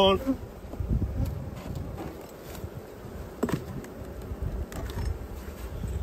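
Honeybees buzzing around an opened Langstroth hive, a steady hum, with a single knock about three and a half seconds in.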